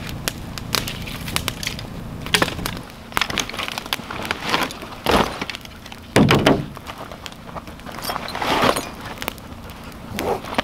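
Rustling and scraping of a pack being rummaged through, with many scattered sharp cracks and snaps. The loudest rustle and thump comes a little past halfway, with shorter rustles before and after it.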